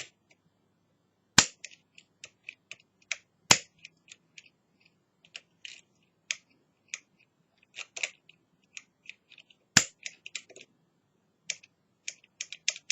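Small metallic clicks from a curtain pick and tension tool working the levers of a Union five-lever mortice lock as they are lifted and set, with three much sharper, louder clicks among them.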